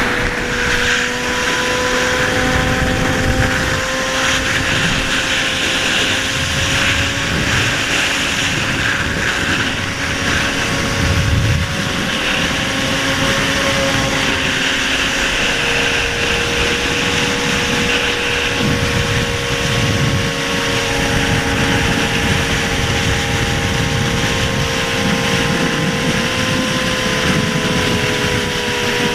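Several sport motorcycles cruising together at steady highway speed, their engines holding long, slowly drifting tones at different pitches. Low wind buffeting on the microphone runs under them.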